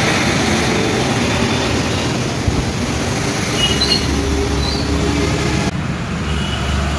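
Steady traffic noise, a low rumble with hiss. About six seconds in the higher hiss drops away and the low rumble carries on.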